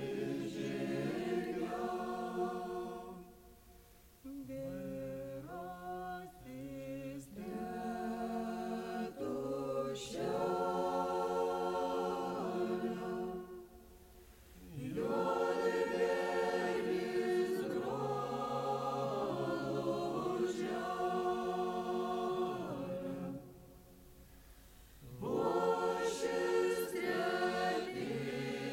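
A Lithuanian folk ensemble's mixed voices singing a folk song together, played from a cassette recording. The song moves in long phrases, with three short breaths between them.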